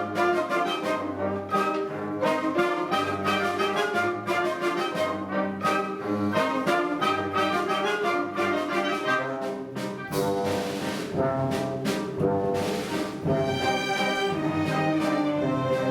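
Orchestra playing a waltz with a steady beat, rising into held chords near the end.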